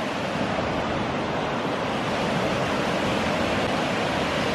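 Lake Huron surf: waves breaking and washing on the shore below, a steady, even rushing.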